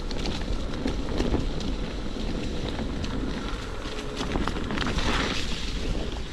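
Wind buffeting the microphone: a steady rumbling noise with scattered small clicks and a brief louder rush about five seconds in.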